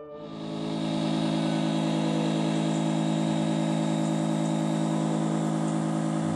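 An engine idling steadily, fading in over about the first second and then holding an even pitch.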